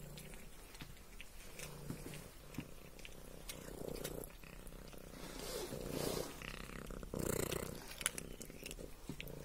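Domestic cat purring, rising and falling in slow swells, with a few faint clicks.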